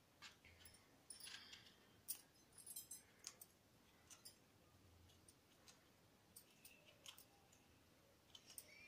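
Near silence with faint, irregular clicks and scrapes of a small knife cutting into and scooping out small eggplants.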